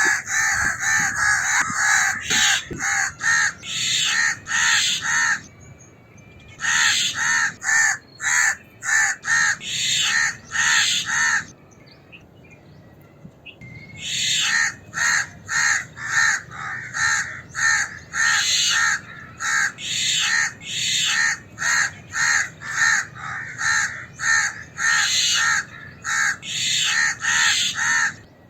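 House crow alarm call: a long series of harsh caws, about two a second, in runs broken by a pause of a couple of seconds partway through.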